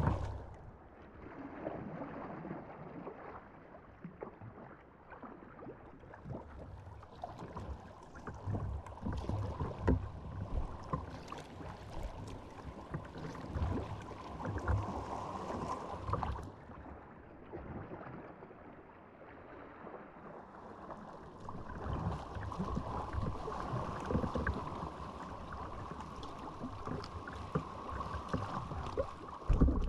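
Water splashing and sloshing around a sea kayak as it is paddled, uneven, with two longer, louder stretches of wash.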